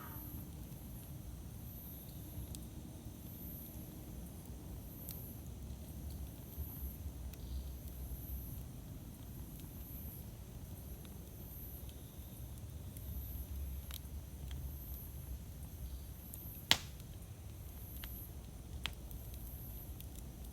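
Campfire burning with a steady low rumble and a few sharp crackling pops, the loudest one about three-quarters of the way through.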